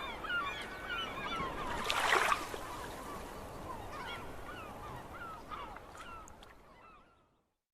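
A flock of birds calling: many short, overlapping, bending calls, with a brief rush of noise about two seconds in, fading out near the end.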